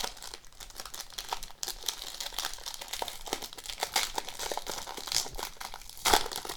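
Wrapper of a one-card hockey card pack crinkling and tearing as it is opened by hand, a dense run of small crackles with a louder crinkle near the end.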